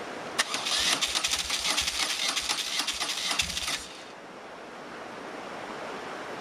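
BMW R1200GS boxer-twin engine cranked on its electric starter for about three and a half seconds with a quick, even beat, without catching, after the bike was drowned fording a river. The starter then stops abruptly.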